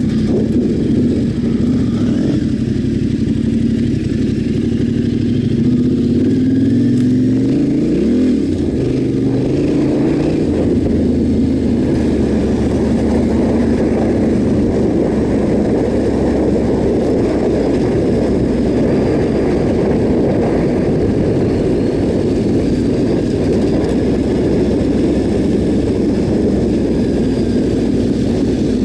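Yamaha Ténéré 700's parallel-twin engine idling, then revving as the bike pulls away about eight seconds in, followed by steady riding on a dirt track with wind rushing over the microphone.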